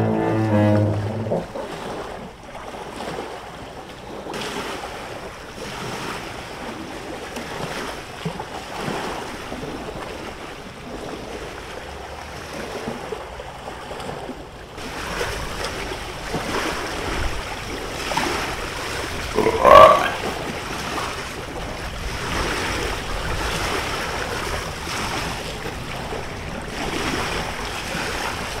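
Sea waves washing in a steady rush of surf, growing louder about halfway through. One brief loud call cuts in about two-thirds of the way through.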